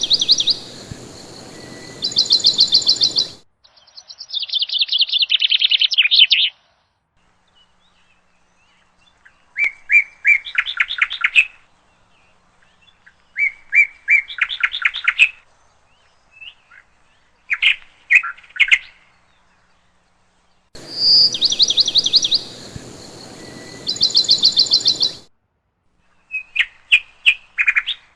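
Sparrow song: short bursts of rapid, high trills and chips, separated by dead-silent gaps where the recording is cut. The opening passage repeats about twenty seconds in.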